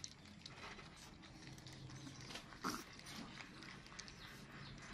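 Several puppies lapping and slurping milk and yogurt from a plate: faint, irregular wet clicks, with one louder short sound about two and a half seconds in.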